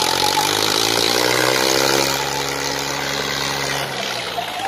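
Swaraj tractor diesel engines revving up and held at high revs under full load as two tractors pull against each other in a chained tug-of-war. The engine note rises over the first two seconds, holds, then eases near the end.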